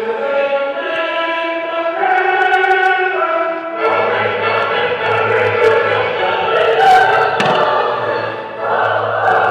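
Choral music with long held chords that change about two seconds in and again near four seconds. A few sharp firework cracks sound under it, the clearest about seven seconds in.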